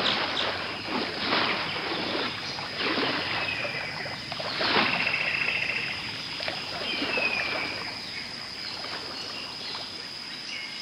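Water splashing and sloshing as animals swim across a river and clamber out onto the bank, with faint bird chirps behind.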